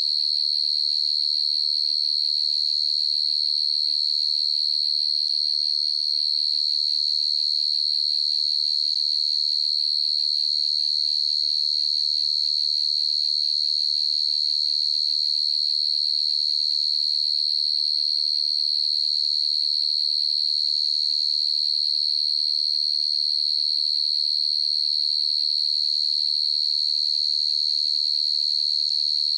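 Field cricket (dế mèn) chirping in a continuous, even, high-pitched trill on one steady note.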